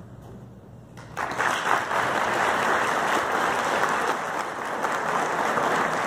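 An audience applauding, starting suddenly about a second in and going on steadily as dense, even clapping.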